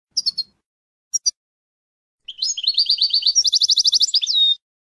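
European goldfinch singing: a few brief high chirps in the first second, then a song phrase of about two seconds with a fast trill, ending on a sliding note.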